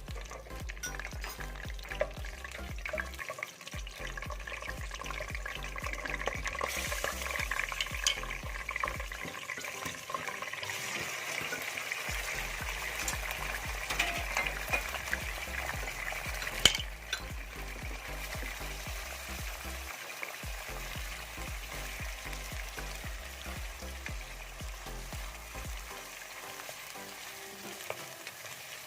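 Chicken karahi sizzling in hot oil in the pan while it is stirred, with small scrapes and clicks and one sharp knock a little past halfway.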